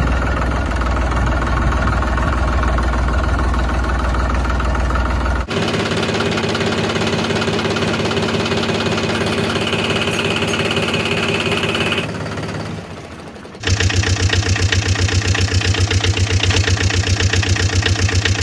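Tractor engine sounds from three recordings spliced together. First a steady low running, then an even, higher hum from about a third of the way in that fades near the two-thirds mark. Then a louder engine with a fast, even pulse.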